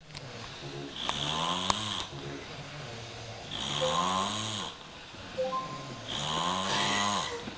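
A person snoring: three snores about two and a half seconds apart, each a drone that rises then falls in pitch with a hissy edge, with quieter breaths between.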